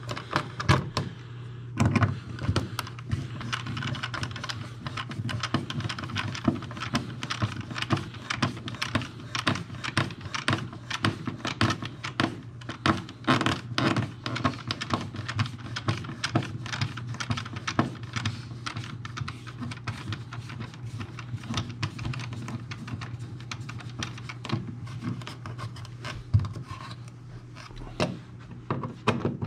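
A screwdriver working the mounting screws of a plastic old-work electrical box set in drywall, a dense run of small clicks and scrapes, mixed with handling of the cable and hand tools at the box. A steady low hum lies underneath.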